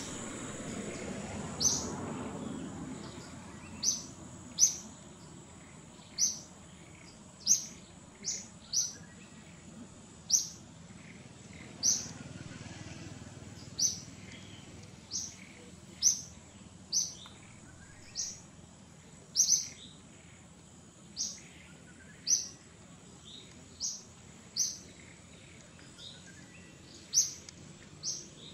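A bird calling with short, sharp, high chirps, repeated unevenly about once a second, over a faint steady high whine.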